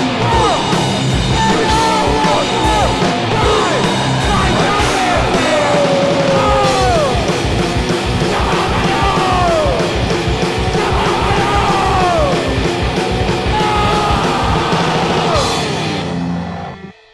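Loud distorted rock band: two electric guitars, bass and drums with yelled vocals, the pitch sliding down in long falls. Near the end the playing cuts off and leaves a short fading ring.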